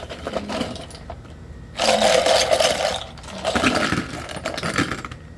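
Square plastic scoop being handled and worked, scraping and rattling in two stretches, the louder one about two seconds in and a second one about a second later.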